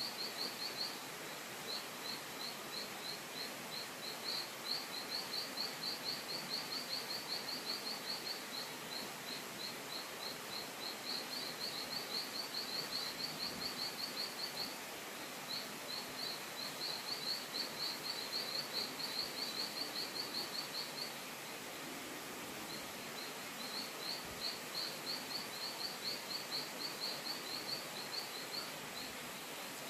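Outdoor forest ambience: a steady hiss with rapid, high chirping that comes in runs of several seconds, several chirps a second, with short breaks between runs.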